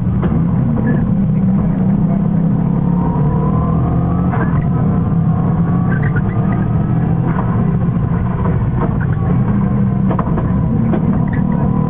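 Subaru Impreza rally car's engine driven hard at speed, heard from inside the cabin: a loud, steady engine sound that rises in pitch a few times as it accelerates, with occasional short sharp clicks.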